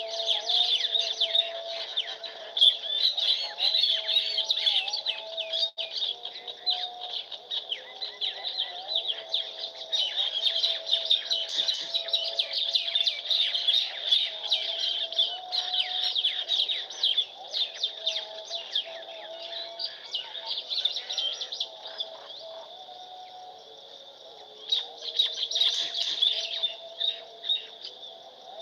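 Many small birds chirping at once in a dense, rapid chatter, with a lower wavering whistle underneath. The chatter thins out about three quarters of the way through, then flares up again briefly.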